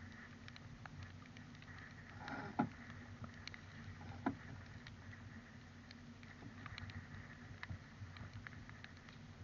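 Sailboat under way: a faint, steady wash of wind and water, with scattered light ticks and two louder knocks, about two and a half and four seconds in.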